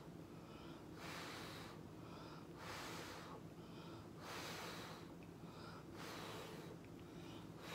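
A person blowing puffs of breath from the mouth onto wet acrylic paint to push and stretch the blooms. There are about five puffs, evenly spaced roughly every one and a half seconds, with breaths drawn in between, over a steady low hum.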